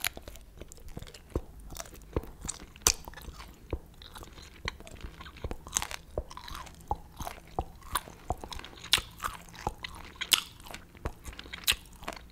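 A person biting and chewing fried dried squid head and tentacles: a run of crisp crunches, about one or two a second, from the crunchy, chewy tentacles.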